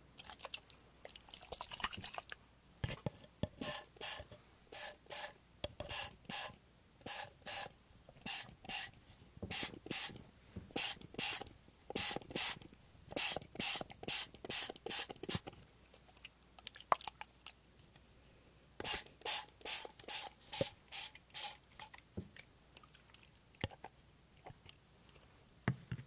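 A small plastic pump spray bottle of water misting into a plastic cup: short hissing puffs, about two a second, in a long run and then a second shorter run after a pause of a few seconds. A few scattered clicks of the pump follow near the end.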